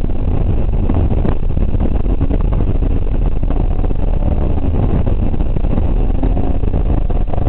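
BMW 325iX's 2.5-litre straight-six heard from inside the cabin, running hard on a gravel rally stage. The engine pitch rises and falls as the car accelerates and slows, over a steady rumble of tyres on gravel with small stones clicking against the car.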